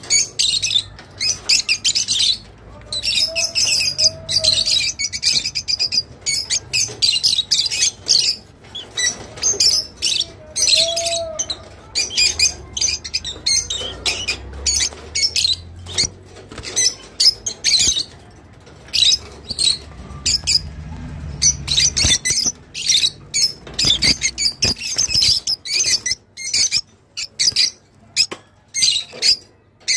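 Rosy-faced lovebirds chirping: fast runs of short, sharp, high-pitched chirps and squawks, broken by a few brief pauses.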